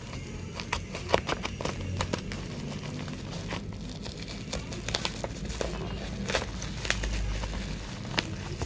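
Plastic packaging crinkling and rustling as a study lamp is unboxed, with many irregular sharp clicks and crackles.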